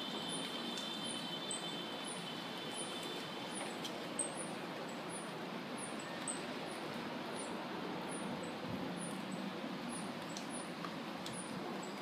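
Mango tree leaves rustling in the wind, a steady hiss. A faint high chirp repeats a little more than once a second, and a thin steady whine stops about four seconds in.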